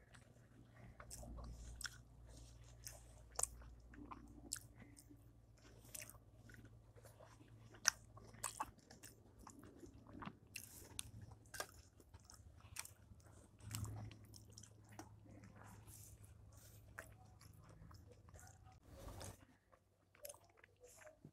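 Chewing and lip-smacking of a person eating rice and curry by hand: a string of irregular wet clicks and smacks, with one sharper click about eight seconds in. A low steady hum underneath stops shortly before the end.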